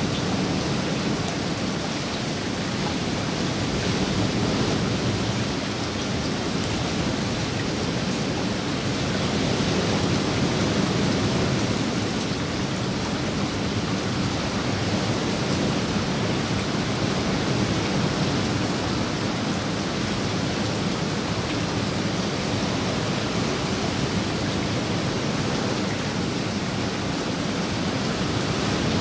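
Steady rain falling on a pool's surface and the surrounding foliage: a dense, even hiss that swells and eases slowly.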